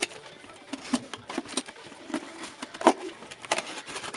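Cardboard being cut through, an irregular run of scratchy crunches and clicks, with a louder one about three seconds in.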